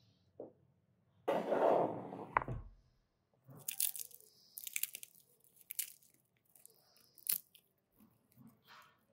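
A metal baking tray slides into the oven with a rushing scrape and a low thud about two seconds in. Then walnut kernels are crumbled between the fingers: dry crackling crunches in short bursts.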